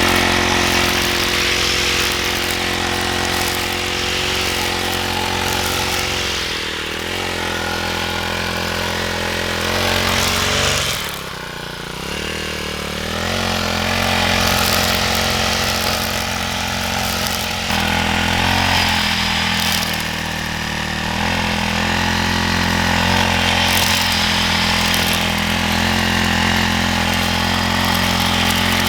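A small engine running steadily, slowing sharply about eleven seconds in and then picking up speed again.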